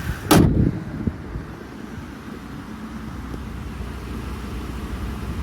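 A short, sharp knock about a third of a second in, then a steady low rumble.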